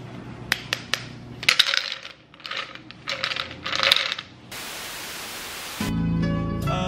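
A clear cup being shaken by hand, its contents clinking and rattling in four or five bursts. About four and a half seconds in, a steady hiss replaces it, and background music starts near the end.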